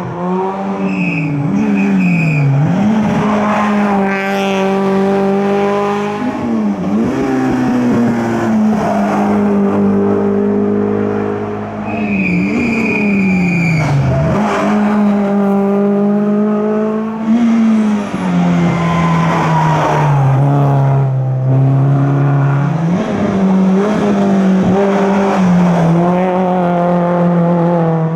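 Hillclimb race car engine running hard at high revs, its pitch holding steady and then dropping sharply and climbing again several times as the driver lifts and changes gear through the bends. Short tyre squeals come about a second in and again about twelve seconds in.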